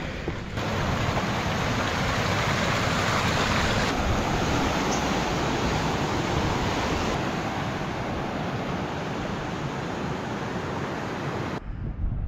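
Steady rush of a small mountain stream tumbling down a stone channel, cutting off abruptly near the end.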